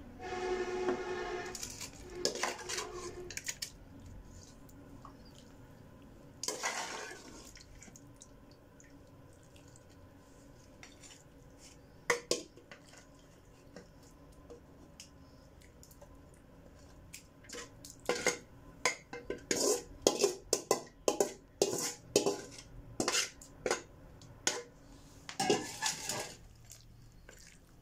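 Metal ladle and spoon clinking and scraping against aluminium cooking pots as chicken curry is spooned and spread over rice, with scattered knocks at first and a fast run of loud clinks near the end.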